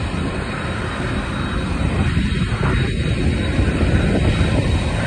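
Kawasaki T-4 jet trainer's twin turbofan engines running during the engine final check: a steady, loud jet rumble with a thin high whine, swelling a little about two seconds in.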